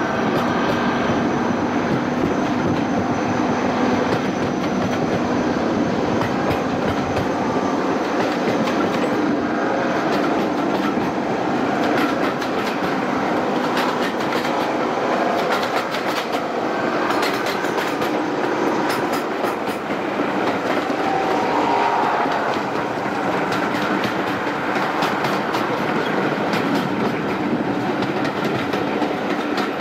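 Class 55 Deltic locomotive 55019, its two Napier Deltic two-stroke opposed-piston engines working hard with a loud, steady drone. The locomotive is clearing her throat, opening up and smoking heavily.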